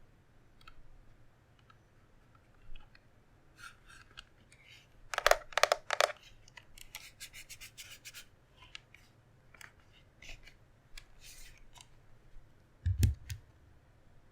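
Scattered clicks and scraping of small hard parts being handled, with a cluster of louder scrapes about five seconds in and a single thump near the end.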